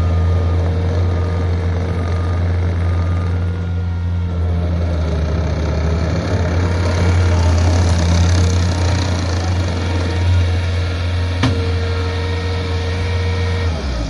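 Bobcat T450 compact track loader's diesel engine running steadily as the machine drives on gravel, with a thin steady whine above the engine hum. One sharp click comes about eleven and a half seconds in.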